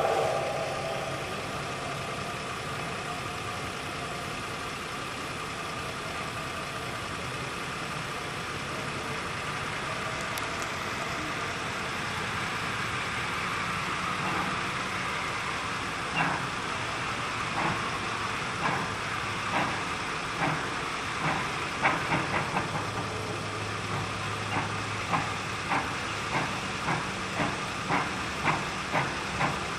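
Steam locomotive No. 152 starting away: a steady hiss for the first half, then exhaust chuffs begin a little past halfway, slow at first and gradually quickening to about one and a half a second as the engine picks up speed.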